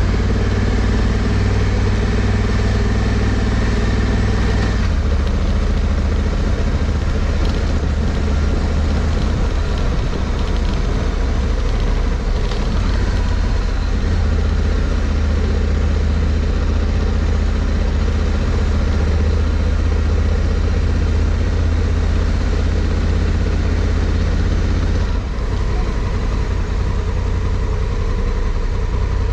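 Honda Africa Twin CRF1100L's parallel-twin engine running at low speed as the motorcycle is ridden. The engine note changes about five seconds in and again near the end.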